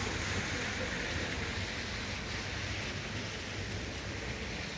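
Steady rain falling on wet pavement, with the hiss and low rumble of car tyres on the wet street.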